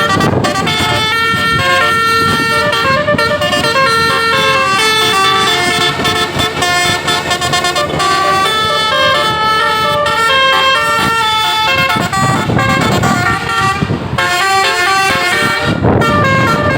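Bus telolet Basuri musical air horn playing a melody of quick stepped notes over vehicle noise.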